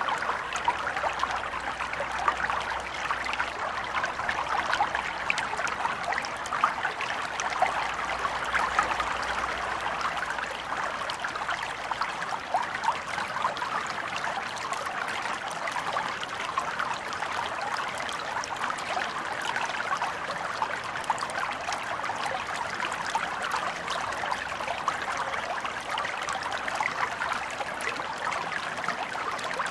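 Small stream flowing over stones, a steady babbling and trickling of water.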